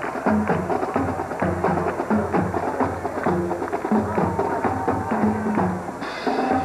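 Band music with drums and percussion and a rhythmic bass line of short repeated notes.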